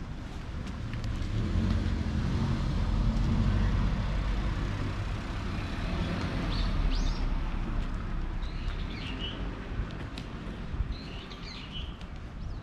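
A low rumble of a passing vehicle swells and fades over the first few seconds. A small bird chirps in short bursts three times in the second half.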